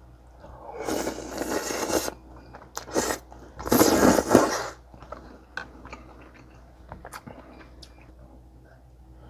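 Close-miked eating: two loud stretches of chewing and crunching, then quieter mouth smacks and clicks.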